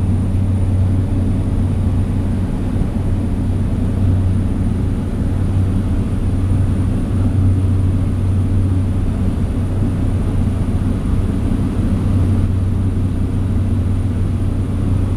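Cabin noise of a small propeller plane in flight: a loud, deep, steady engine and propeller drone that holds constant throughout.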